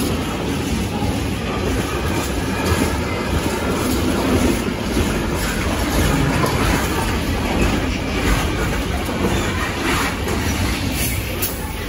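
Container freight train passing close by: a steady rumble of the wagons' wheels on the rails, with repeated clicks as the wheels run over the track.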